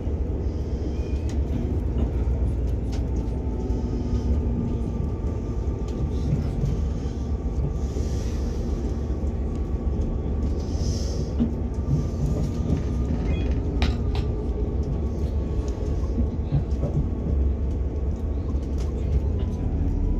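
Steady rumble of a passenger train running on the rails, heard from inside the carriage, with a faint steady whine from the running gear. A few sharp clicks come about two-thirds of the way through.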